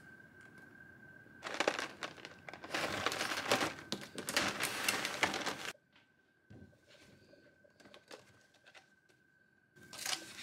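Packaging crinkling and rustling as it is handled, for about four seconds from a second and a half in. Then a quiet stretch with a few light clicks, and a short burst of rustling near the end, over a faint steady high tone.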